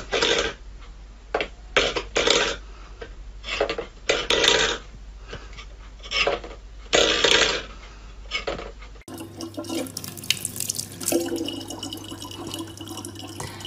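Metal food bowl scraping and clattering on a wooden floor in about ten short, irregular bursts as a cat paws at it. About nine seconds in this gives way to a thin stream of tap water running steadily into a plastic bottle.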